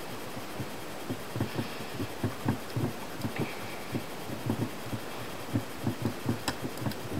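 Soft, irregular low knocks and taps, about two to four a second, from hands handling the plastic front end of a Team Associated NTC3 nitro RC car while screws are driven into the transmission case braces with a hex key, with a few sharper clicks near the end.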